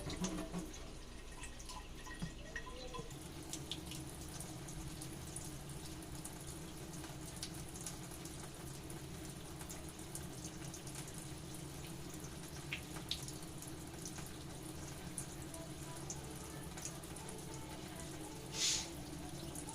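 Kitchen tap water running into a sink during dishwashing, with scattered light clinks and one short louder hiss near the end.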